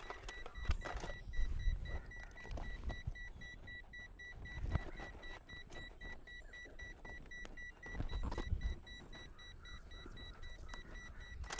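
An electronic beeper sounding a fast, steady series of short high beeps that stops near the end, over the rustle and soft knocks of wires and tools being handled, with a couple of duller thumps.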